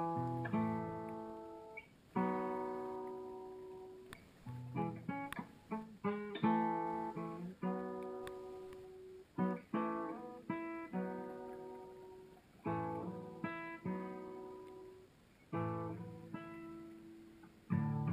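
Background music: guitar playing plucked notes and strummed chords that ring and fade between phrases.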